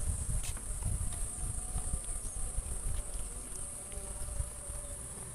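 A steady, high-pitched drone from a chorus of insects, with an uneven low rumble underneath that eases off about four and a half seconds in.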